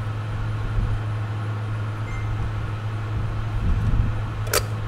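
Steady low hum, with a single sharp click near the end as the dial face is being worked off a VW Beetle speedometer.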